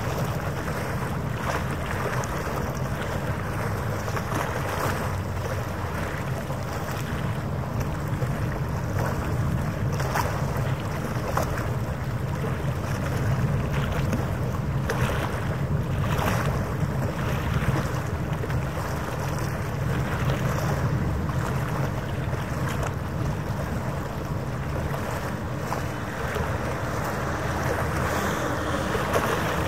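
Harbour ambience: wind buffeting the microphone over waves on the water, with a steady low hum of boat engines underneath.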